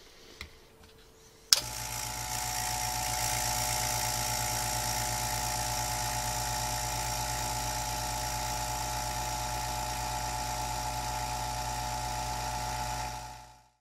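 Electric vacuum pump switched on with a click about a second and a half in, then running steadily with a hum and a fixed whine as it pumps the air out of a pressure-cooker vacuum chamber. The sound dies away near the end.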